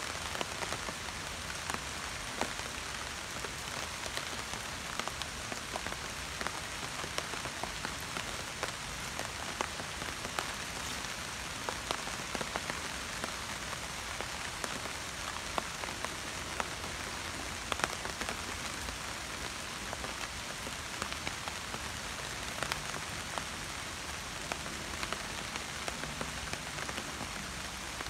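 Steady rain falling on broad leaves and foliage, a constant hiss with many separate drop hits ticking on the leaves.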